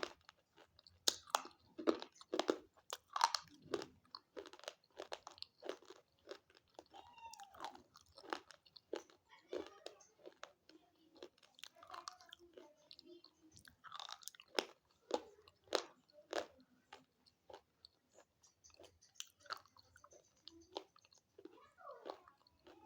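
Slate pencil being bitten and chewed close to the microphone: a dense, irregular run of dry, sharp crunches.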